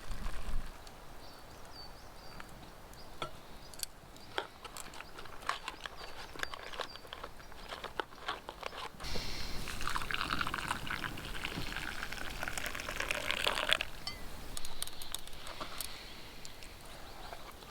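Boiled water pouring steadily for about five seconds, starting about nine seconds in, with scattered small clicks and knocks before and after.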